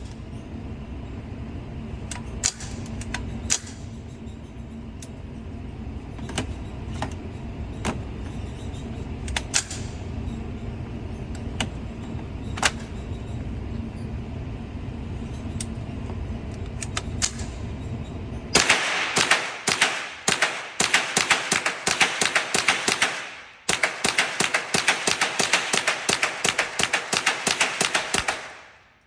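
Scattered single gunshots from a shooting range over a low steady rumble. After about 18 seconds the rumble gives way to a long run of rapid sharp clicks, many per second, which pause briefly and then run on until they fade.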